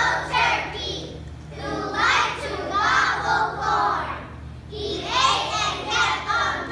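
A class of first-grade children singing together in phrases, with a steady low hum underneath.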